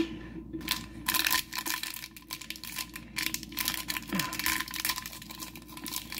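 Plastic blind-bag wrapper crinkling and tearing as it is pulled open by hand, a fast run of crackles. A single light knock comes right at the start.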